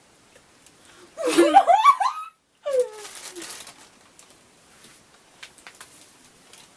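A young woman laughing loudly in high, rising squeals about a second in, cut off suddenly, then a shorter laugh falling in pitch; after that only faint small clicks and rustles.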